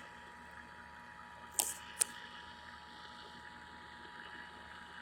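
Faint steady radio hiss with a thin steady tone, broken by two sharp clicks about a second and a half and two seconds in.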